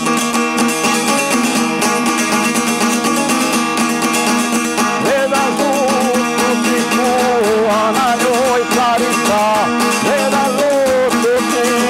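Šargija, the long-necked Bosnian folk lute, played with fast continuous strokes, its strings ringing together in a dense drone under the tune. From about the middle a voice comes in, singing the melody with a wavering vibrato.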